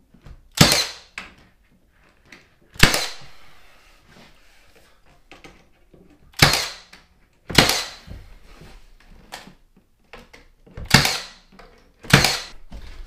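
Milwaukee 18-gauge finish nailer firing six sharp shots at uneven intervals, some a second apart and some several seconds apart, driving nails through wooden window casing into the wall, with faint clicks in between.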